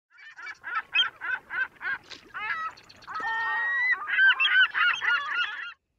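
Birds calling: a run of short calls about three a second, a longer held call a little after three seconds in, then a faster run of overlapping calls that stops suddenly near the end.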